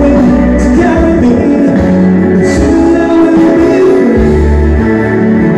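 Live electric keyboard playing a slow, sustained ballad accompaniment, with a woman singing into a microphone over it.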